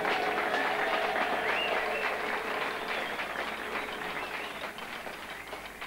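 Large outdoor crowd applauding, the clapping loudest at the start and dying away gradually.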